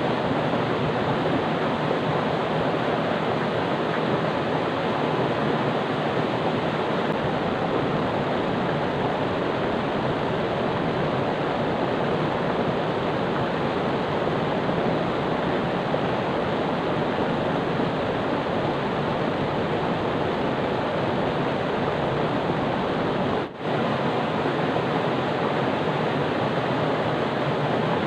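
Steady rushing of flowing river water, with a momentary break about three-quarters of the way through.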